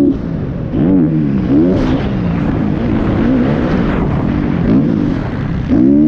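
Motocross dirt bike engine heard close from onboard, revving up and falling back again and again as the throttle is opened and closed through the turns, with a sharp rise in revs about a second in and again near the end.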